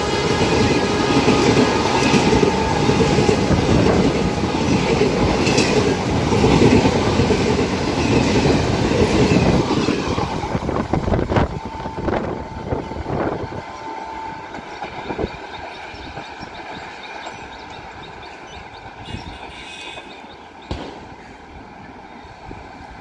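Blue ICF-type passenger coaches of an express train rushing past at speed, wheels clattering over the rail joints. After about ten seconds the noise dies away steadily as the end of the train recedes into the distance.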